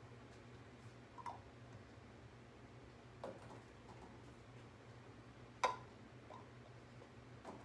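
Metal canning lids being set onto the rims of glass pint jars: four light separate clicks spread over several seconds, the third the loudest, over a faint steady hum.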